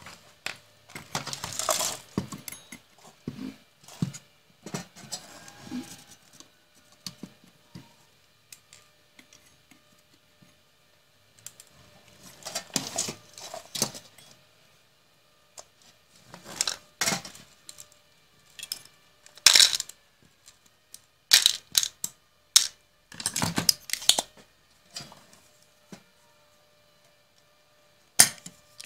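Irregular clatter, knocks and rattles from handling an opened computer power supply, its circuit board and metal casing being moved and turned over on a bench, in clusters with quiet gaps between.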